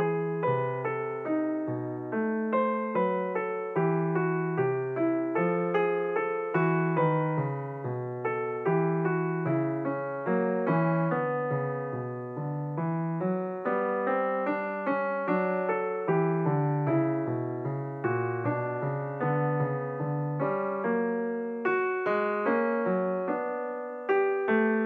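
Background piano music: a steady run of struck notes, each fading after its attack.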